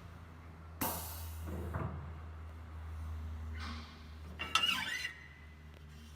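Low steady hum around a Lilliput 290m end milling machine, its cutting stopped. There is a sharp metallic knock about a second in, a fainter one just after, and a brief squeaking scrape near the end.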